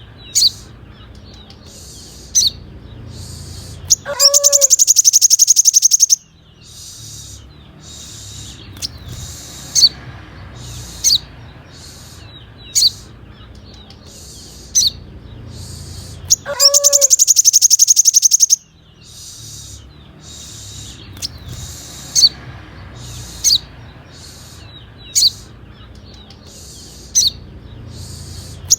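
Looped recording of sunbird song (sogon): sharp, high single chirps every second or two, and twice a loud, rapid, very high trill lasting about two seconds. A faint low hum runs underneath.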